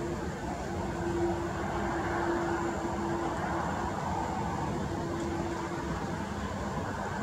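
Distant Airbus A320's CFM56 jet engines running at taxi power: a steady rumble and hiss, with a low hum that breaks off and returns a few times.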